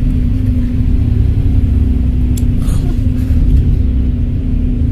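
Volvo B7RLE bus's six-cylinder diesel engine running steadily with a low rumble and a steady hum, with a short click about two and a half seconds in.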